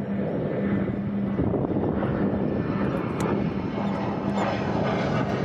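Steady engine drone with a held low hum, mixed with wind and water noise.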